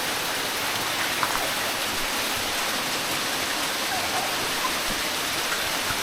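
Steady hiss of water falling like rain from the gorge's waterfall and dripping cliff, pattering onto the rock pool.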